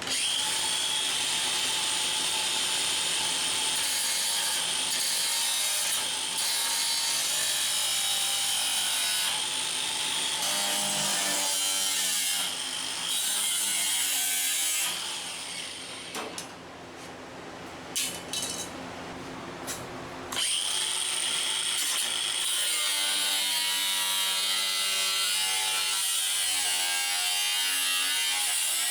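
Handheld power tool working on sheet-metal body panels, running continuously with a whine that shifts in pitch under load. It eases off for a few seconds past the halfway mark, then runs at full level again.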